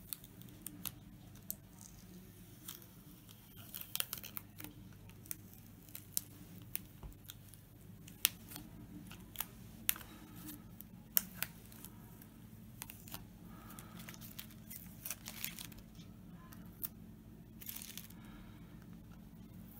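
Black adhesive plastic film being peeled and torn off a carved sign by hand: irregular sharp crackles and ticks, with short stretches of tearing and crinkling.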